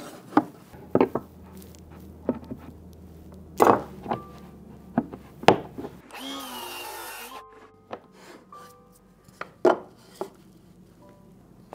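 Wooden boards and tools being handled on a workbench: a string of sharp wooden knocks and taps, with a brief scraping hiss about six seconds in.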